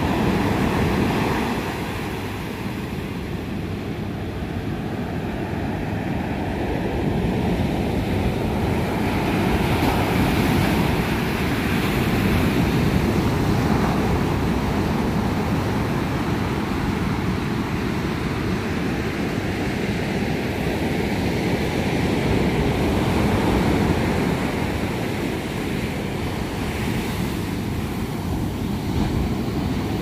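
Ocean surf breaking and washing up the sand: a continuous rush of water that swells and eases every several seconds.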